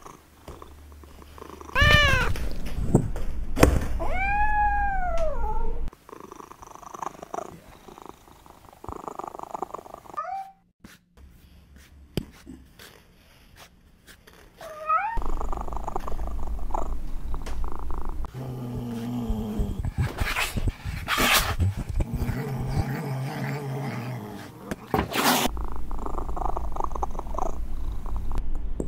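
A domestic cat meowing about four times, with a loud low purr running under much of it. A few sharp knocks come in the second half.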